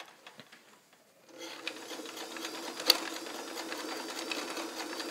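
A Japanese-made, all-metal Kenmore 158.1941 sewing machine starting up about a second in and running steadily, its motor humming under the fine clatter of the needle and feed dogs as it sews a pine leaf stretch stitch.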